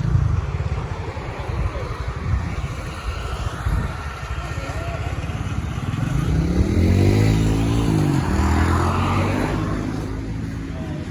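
Small motorcycle-type engine running, its pitch climbing about six seconds in and falling away again a couple of seconds later, over a steady low engine rumble.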